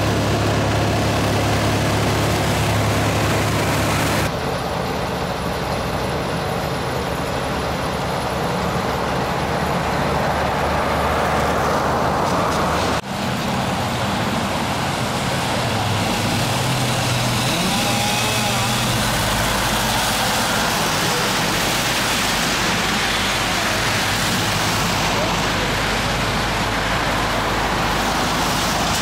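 Road traffic on a wet street: cars and a van passing with tyres on wet pavement, over steady engines running. The sound changes abruptly twice.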